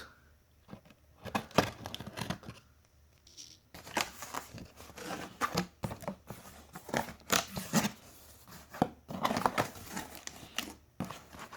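A cardboard box being opened and its packaging handled: irregular rustling and crinkling with scattered sharp clicks and knocks.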